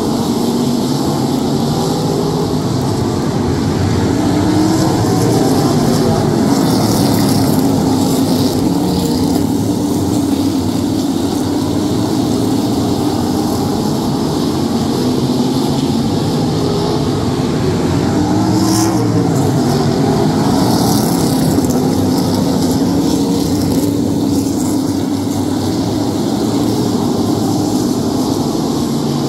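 A field of modified race cars running together around an oval track: a loud, steady engine drone whose pitch rises and falls slowly as the pack circulates.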